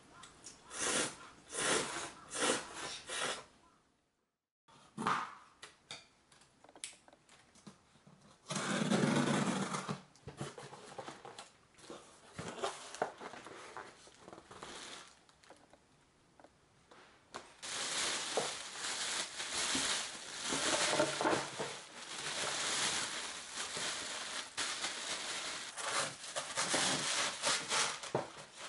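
Noodles being slurped. After a short break come cardboard box handling and rustling, then a long stretch of plastic bags crinkling and rustling as wrapped frozen fish fillets are handled.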